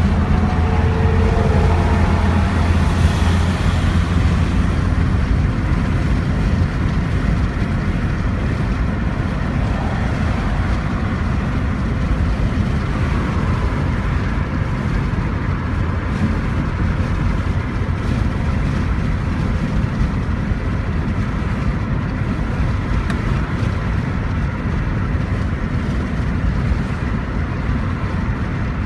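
Car engine running steadily, louder for the first few seconds. The owner takes it as showing the signs of a failing alternator and bad spark plugs.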